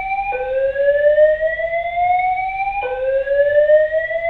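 Apartment building fire alarm sounding its slow whoop evacuation tone from the in-unit speaker. Each sweep rises steadily in pitch for about two and a half seconds, then drops back and starts over.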